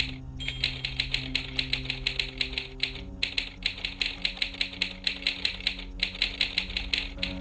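Animated haunted typewriter prop clacking out keystrokes in a fast, even run, about five or six a second, with a brief pause about every three seconds. A low, sustained music bed plays underneath.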